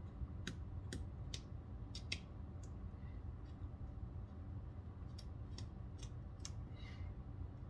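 Small sharp metallic clicks, about ten in two groups, from a T6 Torx driver working out the pocket-clip screws of a Benchmade Mini Bugout knife.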